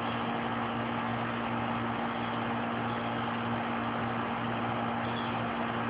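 A motor running at a steady speed: a constant low drone under an even hiss.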